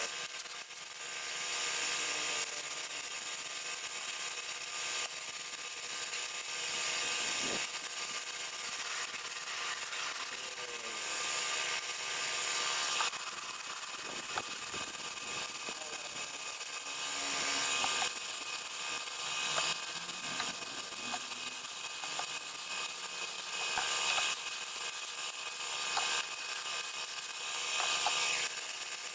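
Steady mechanical whine and hiss of running machinery, with scattered sharp clicks as metal fittings are handled.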